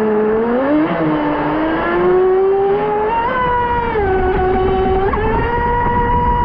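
Pro Boat Sonicwake V2 36 RC boat's brushless electric motor whining as it runs across the water, the pitch climbing and dropping several times with the throttle, over a rushing hiss of hull and spray.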